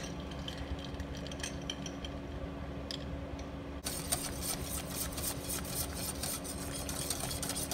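A wire whisk beating thickening polenta in a stainless-steel pot: a fast, scratchy swishing that starts about four seconds in and goes on for about four seconds. Before it there is only a low steady hum.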